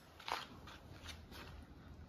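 Quiet background with a few faint, brief rustling sounds, the clearest about a quarter of a second in.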